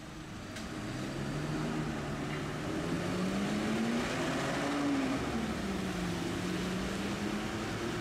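Street tram's traction motor and gearing humming, the pitch climbing as the tram gathers speed and then dropping back and levelling off as it eases. Heavy rain hisses steadily underneath.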